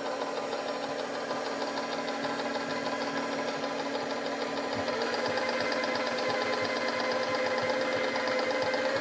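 KitchenAid appliance's electric motor running with a steady whine and a repeated clicking, which the owner is unsure is normal. The motor's pitch steps up about five seconds in.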